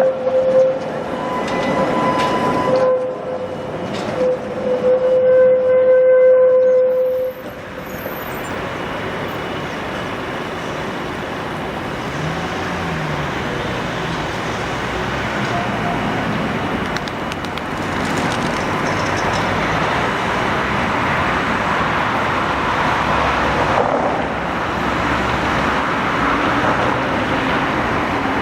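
Tatra T3 tram running on street track, with a steady whine that stops suddenly about seven seconds in. After that, a steady rush of street traffic noise builds toward the end.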